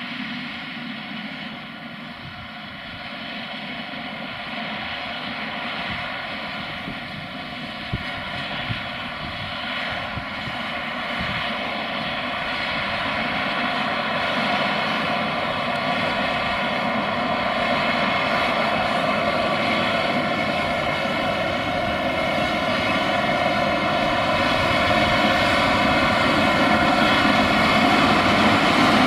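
New Holland T8 320 tractor's six-cylinder diesel engine running steadily under load while pulling a plough through soil. It grows gradually louder as the tractor comes closer.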